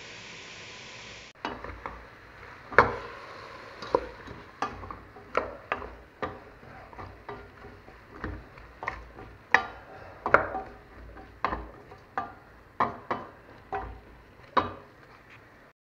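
Wooden spoon stirring diced vegetables in a stainless steel pot, knocking against the pot's sides about once or twice a second, starting about a second and a half in.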